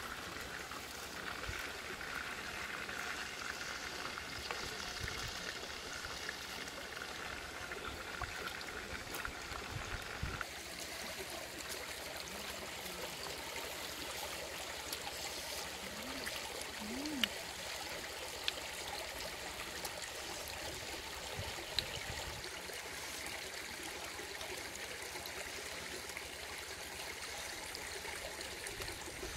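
Shallow stream running over rocks: a steady rush of water that shifts in tone about ten seconds in, with a few faint clicks.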